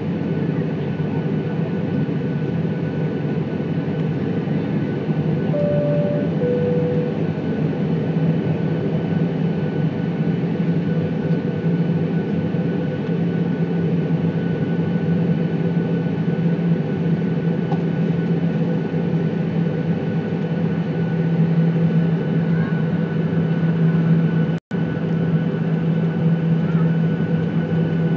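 Inside the cabin of a Boeing 737-800 taxiing, its engines giving a steady rumble and hum with a faint whine. About six seconds in, a two-note high-low cabin chime sounds. Near the end the sound cuts out for an instant.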